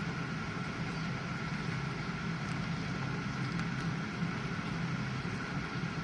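GE dishwasher running a wash cycle: a steady low pump hum with a thin whine over an even hiss of water spray.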